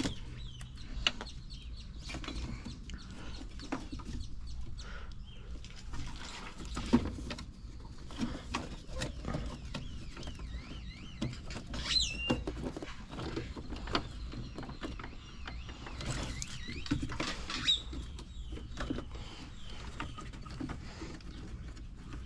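Irregular knocks, clicks and clatter of hands and tools working parts loose on a truck, over a low steady hum, with birds chirping in the background.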